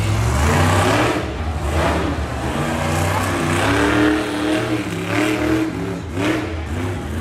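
Monster truck engine revving up and down several times in loud throttle surges as the truck drives around a muddy arena track.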